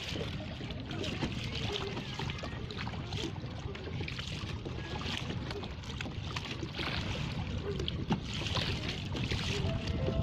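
Kayak paddling: the paddle blades dipping and splashing in the water every second or two, over a steady low wind rumble on the microphone.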